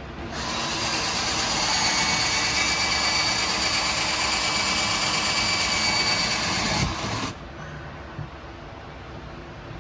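Power drill running steadily with a spade bit boring into MDF board, its motor whine over the cutting noise. It stops abruptly about seven seconds in, leaving a low hiss.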